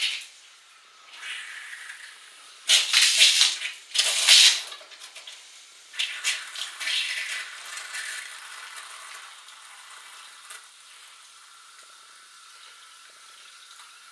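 Water running from a newly plumbed bathroom tap, the first water through the new lines: it comes in three loud spurts about three, four and six seconds in, then settles into a steady hiss.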